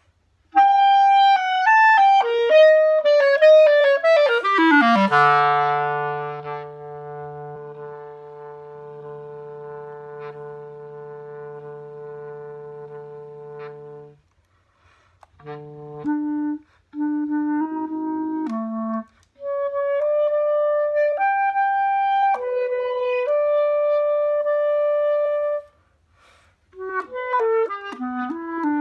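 Solo wooden clarinet playing unaccompanied. It opens with a fast run falling down to a long held low note that grows softer. After a short break come phrases of sustained notes separated by brief pauses, and a quick passage starts near the end.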